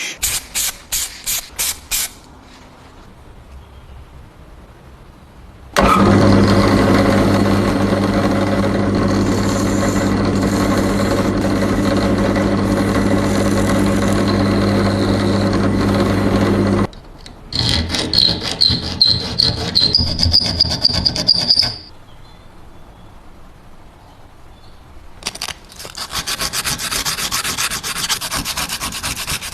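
Workshop tool sounds: quick rhythmic rubbing or sanding strokes, then a power tool running steadily for about ten seconds, followed by more rubbing strokes.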